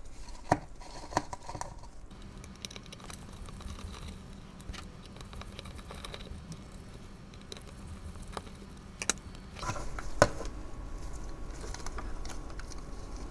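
Small clicks and taps of a screwdriver and small screws being handled while the four screws holding a lamp's battery PCB mount are taken out, with a few sharper clicks, two near the start and two about nine and ten seconds in.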